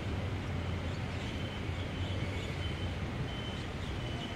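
Steady low rumble of urban road traffic, with short high-pitched beeps repeating at uneven intervals.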